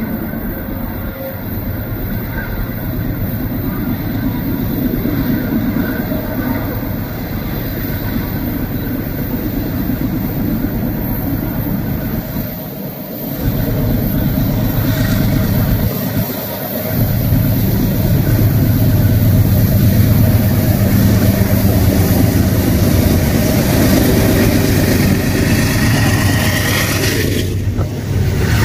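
Lead units of a heavy freight train, GE diesel-electric locomotives, approaching and passing beneath. Their engines give a steady deep rumble that grows louder from about halfway through as the locomotives come close.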